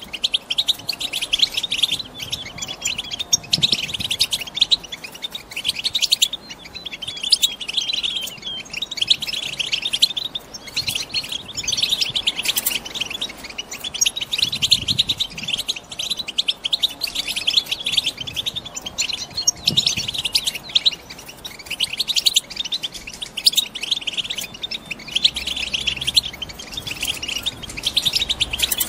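Female European goldfinches twittering in a fast, continuous high-pitched chatter, in runs broken by short gaps. This is the excited chatter of hens in breeding condition.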